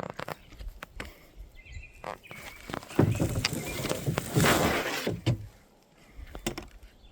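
Plastic kayak being launched into a river: irregular knocks and scrapes of the hull and paddle, with a louder scraping and splashing stretch about three to five seconds in.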